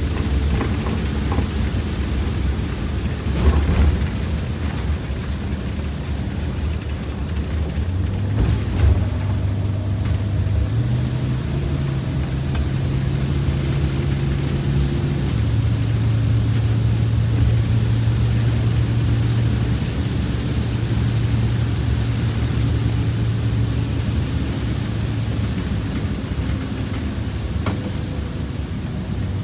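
Detroit Diesel 8V92TA two-stroke turbocharged V8 pulling a Wanderlodge RV bus on the road, heard from the cab over road noise, freshly rebuilt on one bank with four new pistons and liners. Its note steps up in pitch about ten seconds in and eases back a little a few seconds later, with a couple of short knocks early on.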